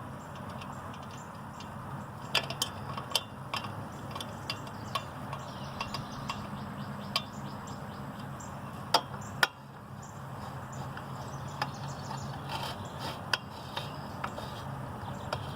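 Scattered light clicks and taps of tools and small engine parts being handled during reassembly, with two sharper knocks about nine seconds in, over a steady low hum.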